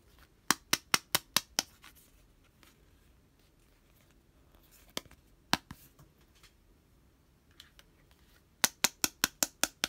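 Sharp taps or clicks on hard plastic toys, coming in quick runs of about five a second. There is a run of six near the start, two single taps midway and another run of six near the end.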